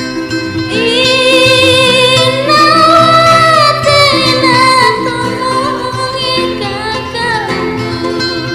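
Background music: a song with a singing voice holding and bending long notes over steady instrumental accompaniment, the voice strongest from about one to five seconds in.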